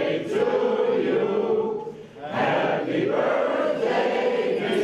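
A group of people singing together in long held phrases, with a short breath break about two seconds in.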